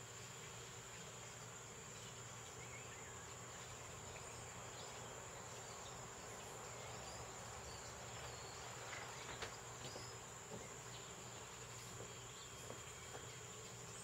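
Faint, steady high-pitched trilling of insects, one unbroken drone, with a few faint short chirps around the middle.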